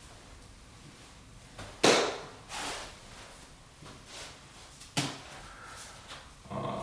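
Sharp smacks of poi being spun and caught in the hand during try-catch and stall moves: the loudest about two seconds in, a softer swish just after it, and another smack about five seconds in.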